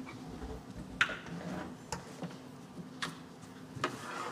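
Handling noise as an acoustic guitar is picked up and readied: a few sharp knocks and clicks about a second apart, over a faint steady hum.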